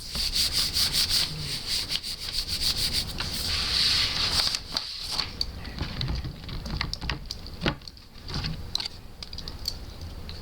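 Skateboard grip tape being scraped and rubbed against the deck in quick repeated strokes, the way the tape edge is worked down before trimming. After about five seconds the strokes thin out into scattered scratches and clicks.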